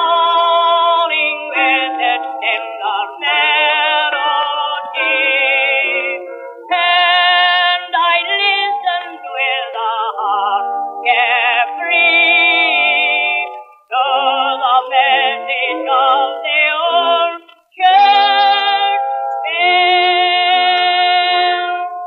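Instrumental interlude of a 1905 acoustic recording: a melody with heavy vibrato over accompaniment, thin and tinny with no bass or top end, briefly breaking off twice in the second half.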